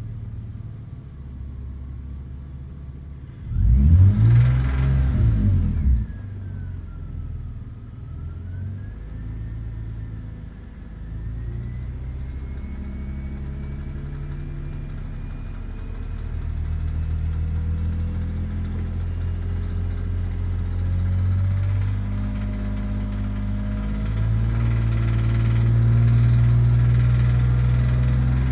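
BMW E46 330Ci's M54B30 straight-six running, revved sharply once about four seconds in, then held at slowly rising revs. It has a rattle from the chain drive that the owner puts down to a broken timing-chain guide rail.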